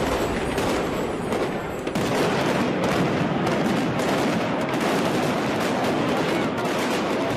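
Fireworks going off in a dense, continuous crackle of many rapid bangs.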